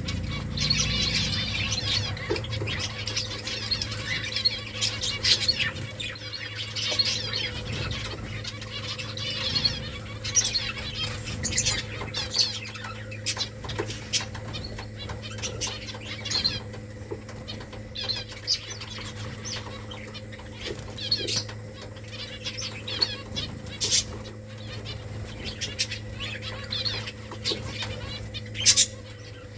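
A colony of finches chirping in many short, rapid calls, with scattered sharp clicks and wing flutters among them, over a steady low hum.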